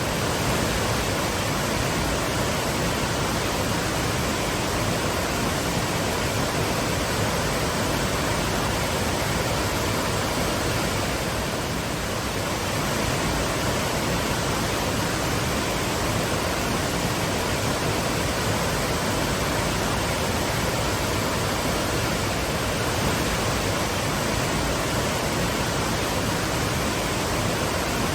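Twin waterfalls rushing in a steady, even roar of falling water.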